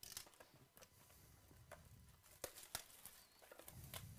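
Faint handling of a cardboard trading-card box: scattered light taps and scrapes of fingers on cardboard as it is turned, with two sharper clicks about halfway through.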